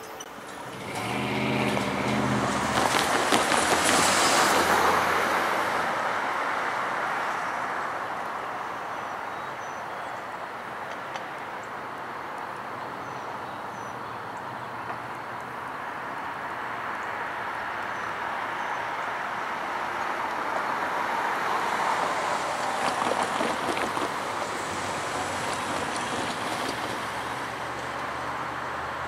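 Road vehicles passing by: the loudest passes a few seconds in, with a low engine hum as it approaches. Another vehicle swells past near the end over a steady hiss of traffic.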